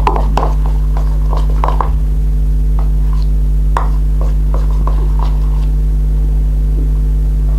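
Spoon scraping and clicking in a bowl as slime is stirred with borax activator: a cluster of quick clicks in the first two seconds, then a few scattered ones, over a steady low hum.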